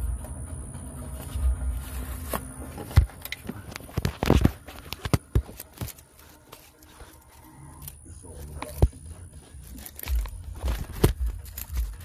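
Scattered sharp clicks, knocks and scraping of hands and tools prying at a tight camshaft position sensor in a car engine bay, with rubbing and handling noise on the phone microphone. The loudest clicks come about three and four and a half seconds in.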